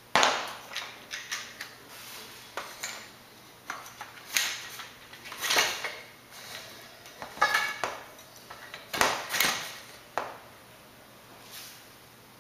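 Aluminium tubes and tube connectors knocking and clinking as they are handled and fitted together into a trailer frame: irregular sharp knocks, one a little past halfway ringing briefly like struck metal.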